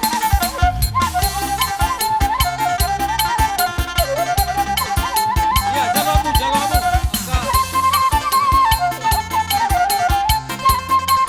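Batak traditional ceremonial music: an ornamented, wavering wind-instrument melody over fast, steady drumming and a repeating bass line.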